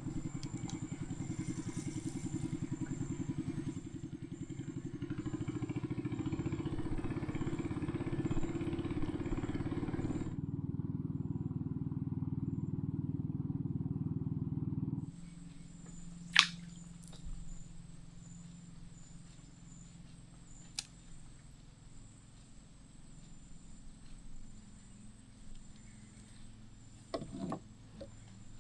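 A small boat's motor running with a steady low pulsing, easing down about ten seconds in and cutting out about halfway through. A sharp knock follows a second later, then quiet ambience with a few faint clicks.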